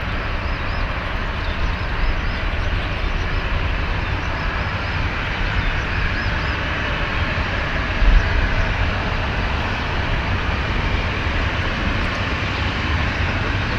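Boeing 737-800 jet engines (CFM56-7B turbofans) under takeoff power, a steady distant roar with a deep rumble beneath it. There is a brief low thump about eight seconds in.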